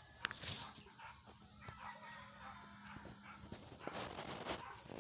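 Faint pet animal sounds, with small clicks and a short rustling burst about four seconds in.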